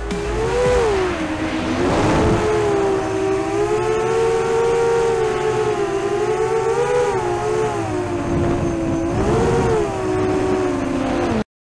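Motors and propellers of a 7-inch FPV quadcopter whining in flight, the pitch rising and falling with throttle and dipping sharply twice; the sound cuts off suddenly near the end.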